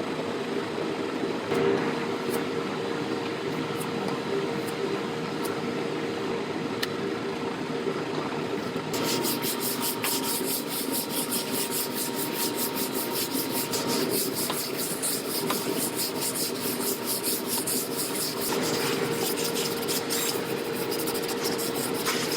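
Sanding body filler on a repaired truck bedside: a continuous rubbing, scraping sound. About nine seconds in it turns brighter, with a fast, even pulsing.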